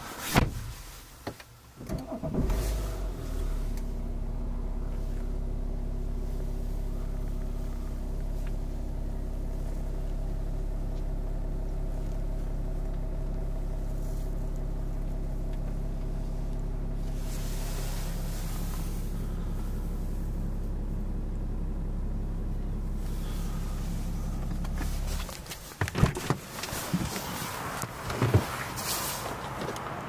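BMW 3 Series engine starting about two seconds in, idling evenly with a steady low hum, then switched off near the end. Scattered clicks and knocks come before and after it.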